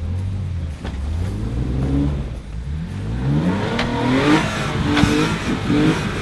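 Off-road Jeep's engine revving hard, its pitch rising and falling several times and louder in the second half, with a few sharp knocks in between.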